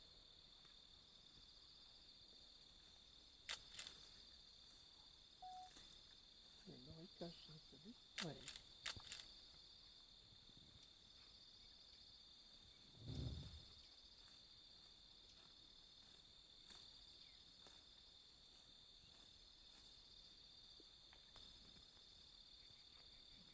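Faint, steady high-pitched drone of insects, with a few sharp clicks and a short low thud about 13 seconds in.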